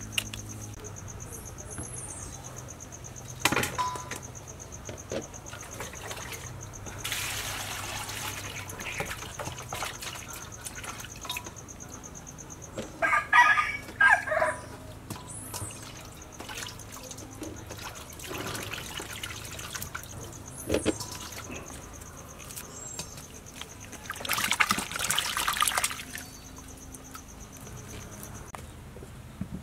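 Water and ice sloshing and splashing in a steel bowl in several bursts as mud crabs are washed by hand.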